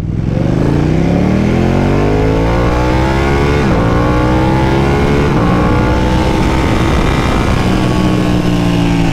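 Ducati Panigale 1299's Superquadro L-twin engine accelerating hard at full throttle, its pitch climbing steadily. It drops sharply at two upshifts, from first to second about a third of the way in and to third just past halfway, then climbs again.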